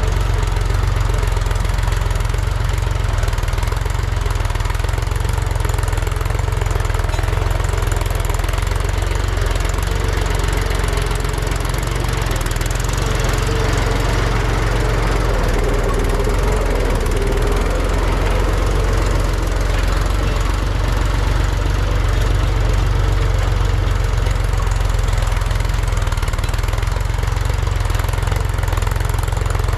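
Heavy diesel engine running steadily, a constant deep rumble that does not rev up or stop.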